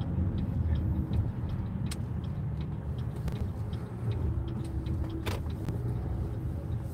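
Road and engine noise heard inside a moving car's cabin: a steady low rumble, with a few faint clicks, the clearest about two seconds in and about five seconds in.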